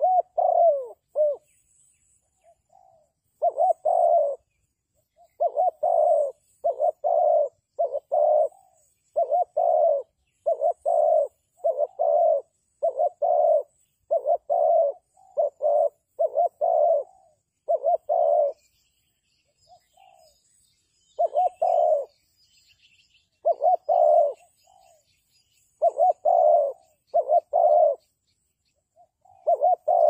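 Spotted dove cooing: a long string of low, rolling coo notes in quick runs, broken by short pauses about two seconds in, around the twenty-second mark and near the end. Faint high chirping sits behind it, growing toward the end.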